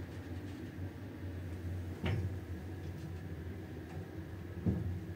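Passenger elevator car travelling: a steady low hum, with two short knocks, about two seconds in and near the end.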